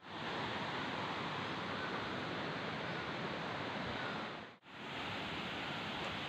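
Steady rush of a fast rocky stream, its whitewater running over stones. The sound drops out for a moment about four and a half seconds in, then comes back the same.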